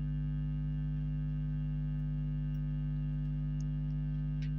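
A steady, unchanging low electrical hum with a buzzy edge.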